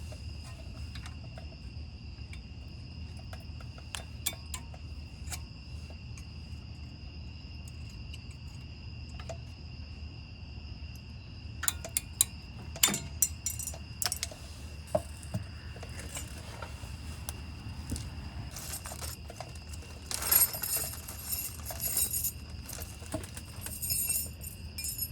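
Small metal brake-pad abutment clips being pried out and handled on a caliper bracket: scattered light metallic clicks and clinks, busiest near the end. Under them runs a steady high-pitched insect trill.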